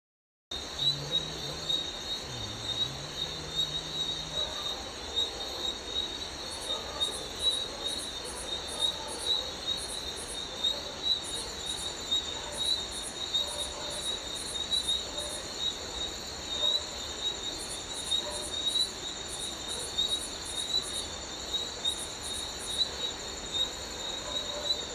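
Chorus of insects, crickets or cicadas, a steady high shrill with a fast pulsing trill, and a second, higher chirping that repeats in regular runs.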